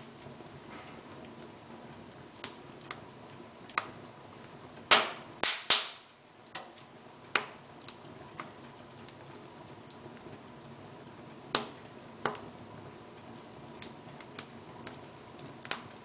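Wood logs burning in an open fireplace: scattered sharp crackles and pops over a low steady hiss of the flames. Three loud pops come close together about five seconds in, and two more stand out later on.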